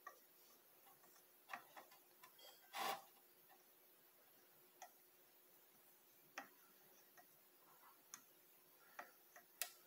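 Faint, irregular small clicks and taps from handling a motherboard while a replacement capacitor is fitted into its holes, one a little louder about three seconds in.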